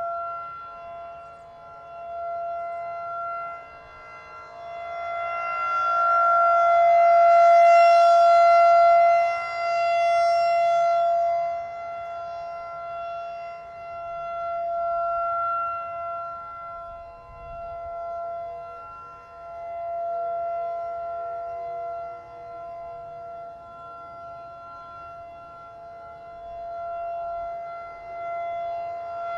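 Federal Signal 2001-DC rotating outdoor warning siren sounding the full alert signal: one steady held tone with no rise or fall in pitch. Its loudness swells and fades every few seconds as the rotating head sweeps past, loudest about a third of the way in.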